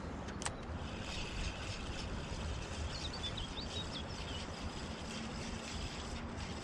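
Low, fluctuating rumble of open-air background noise, with a single sharp click about half a second in and a few faint high chirps around three seconds in.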